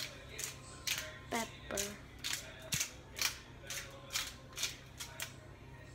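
Disposable pepper grinder twisted by hand over salmon fillets: a rapid series of short crunching grinds, about two a second, a dozen in all.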